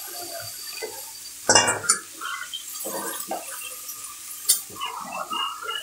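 A metal spatula stirring and scraping watery curry in a karahi just after water has been poured in. There is a loud clank about a second and a half in and a sharp clink near the end.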